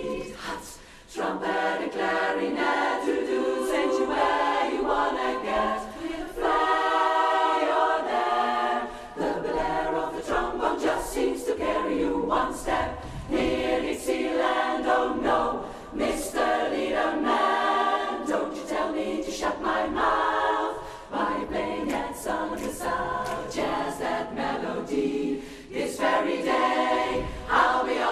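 Women's barbershop chorus singing a cappella in close harmony, phrase after phrase with brief breaths between.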